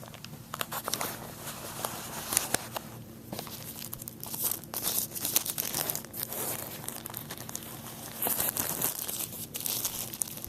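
Packaging crinkling and tearing in irregular crackles and rustles as the tablet is unwrapped and lifted out of its box, busiest near the end.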